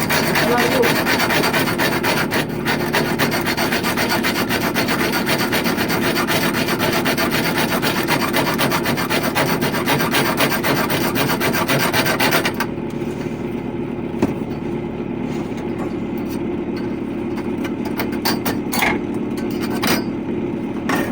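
Rapid rasping and scraping on copper pipe, continuous for about twelve seconds, then stopping abruptly. A steady low hum runs underneath.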